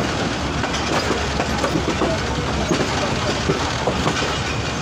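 Passenger train running at speed, heard from on board: a steady rumble and hiss of wheels on the track, with irregular clicks and clacks as the wheels cross rail joints and points.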